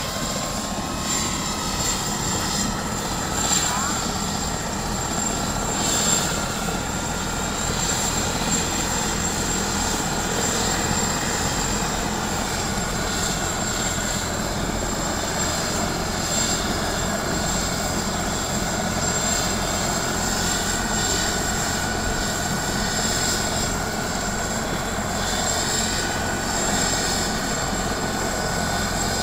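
Helicopter running on the ground with its turbine engine and main rotor turning: a steady rotor noise with a high whine that climbs a little in the first few seconds, then holds steady.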